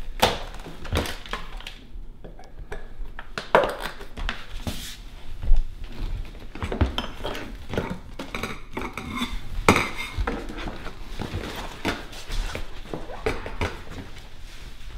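Irregular clicks, clunks and knocks of an appliance air lift's corrugated plastic hose and fittings being handled and pushed onto the lift pads, with one sharper knock about five seconds in. The blower is not running.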